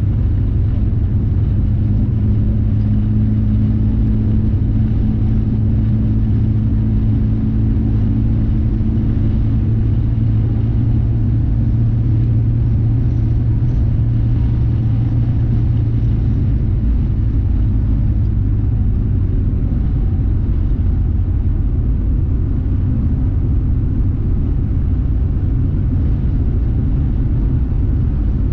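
Road noise inside a car cabin at highway speed: a steady low rumble of engine and tyres, with a steady hum over it that fades out a little past halfway.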